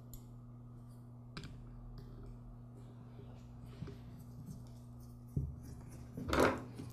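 Faint clicks and taps of a small carburetor idle screw and parts being handled and threaded in by hand, with a low knock about five seconds in, over a steady low hum.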